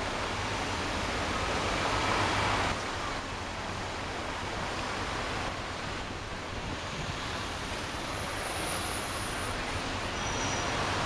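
Steady noise of a car moving slowly in traffic, heard from inside the cabin: a low engine hum under an even hiss, a little louder for the first three seconds.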